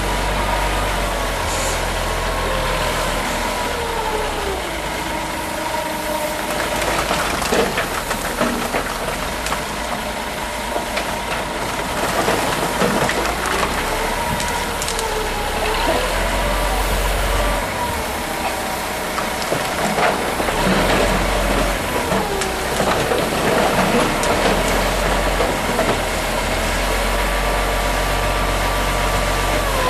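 Diesel front loader working, its engine note rising and falling several times as it works the hydraulic arm to tip coal into a steam tank locomotive's bunker, with a few clatters of coal.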